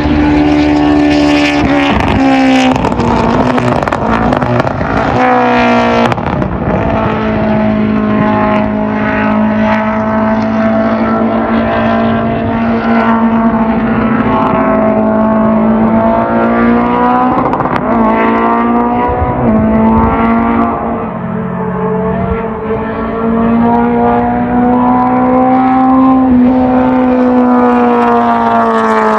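Race car engine running hard at high revs on a hillclimb, its pitch held high and drifting, broken sharply by gear shifts a couple of seconds in, around six seconds in and again past halfway.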